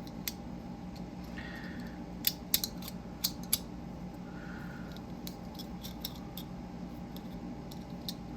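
Small parts of a BM Dial fidget toy clicking and tapping against each other as it is fitted back together by hand, with four sharper clicks between about two and three and a half seconds in and lighter ticks after.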